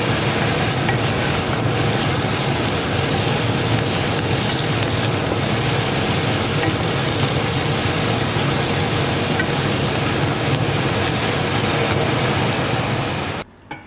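Sliced onions sizzling as they fry down to browned onions in a small frying pan, over a steady whirring hum. The sound cuts off suddenly near the end.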